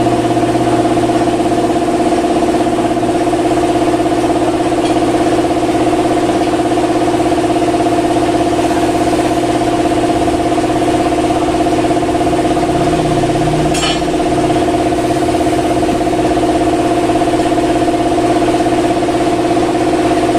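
Loud, steady mechanical drone of a motor running at an unchanging pitch, with a short sharp click about fourteen seconds in.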